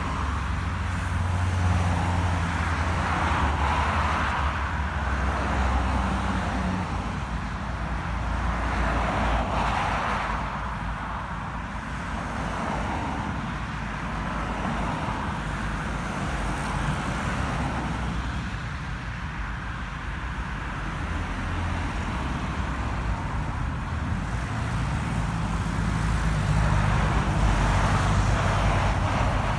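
Road traffic passing on a main road: a steady stream of cars, each swelling and fading, with a deeper engine hum near the start and again near the end as heavier vehicles go by.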